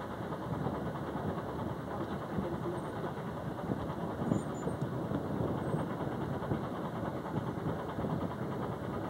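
Steady rumble of a sailboat's engine running under way, with rushing noise mixed in.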